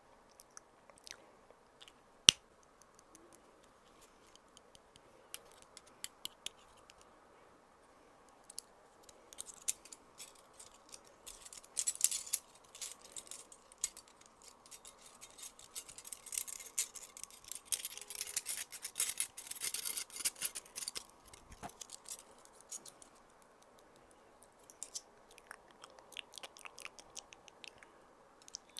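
Close-miked ASMR trigger sounds. Scattered crisp clicks, with one sharp loud click about two seconds in, then a long stretch of dense, crackly high-pitched scratching and clicking in the middle, thinning out to occasional clicks again near the end.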